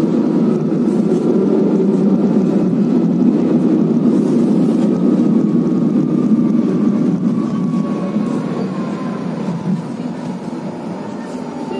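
Steady rumble of a moving train, heard inside the carriage, with a faint whine that slowly falls in pitch. The noise eases a little over the last few seconds.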